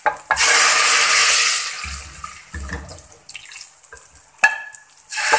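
Hot ginger-and-garlic tadka in oil poured from a small frying pan into daal in a pressure cooker, hitting the liquid with a loud sizzle that starts about a third of a second in and dies away over the next two seconds. A sharp knock comes near the end, and the sizzling starts again just as it ends.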